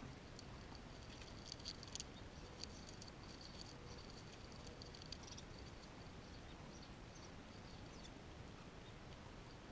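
A fox squirrel chewing and gnawing its food close to the microphone: faint quick clicks and crunches, most of them bunched together about one and a half to two seconds in, over a faint high steady tone.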